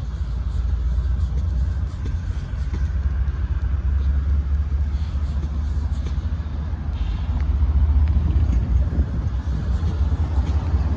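Low, steady rumble of an approaching Union Pacific freight train's diesel locomotives, getting somewhat louder about eight seconds in.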